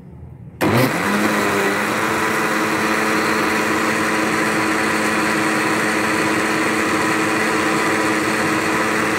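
Electric blender switched on about half a second in. Its motor spins up with a rising whine, then runs steadily at full speed, grinding a milk, bread and nut-powder mixture.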